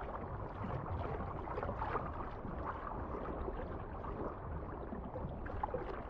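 Running water trickling and gurgling steadily, with many small irregular splashes.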